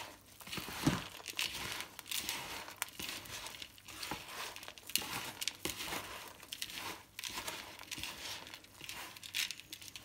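A hand mixing a dry, crumbly budgie soft-food mix of egg food, chopped vegetables, seed and sweet corn in a plastic tub: irregular rustling strokes, with a louder stroke about a second in.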